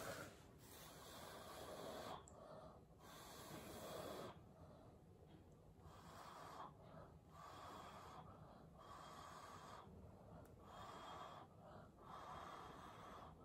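A person blowing by mouth onto wet acrylic paint to push it across the white base in a Dutch pour: a string of breathy blows of about a second each, with short pauses between them.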